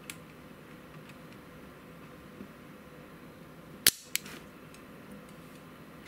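Spring-loaded solder sucker (desoldering pump) firing to pull molten solder out of an RCA connector's solder cup: one sharp snap about four seconds in, then a softer second click just after.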